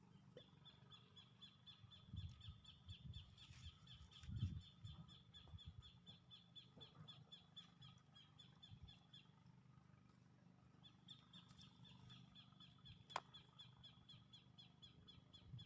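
A small creature's high, rapid, even trill at one steady pitch, running about nine seconds, breaking off, and starting again a second and a half later. A few soft low thumps come around two and four seconds in, and a single sharp click near the end.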